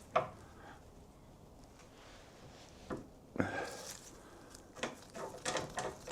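Rivet nuts and a hand rivnut tool being handled and set into drilled holes in a sheet-metal core support: a sharp click, a pause, then a knock with a short clatter and a run of small clicks and taps near the end.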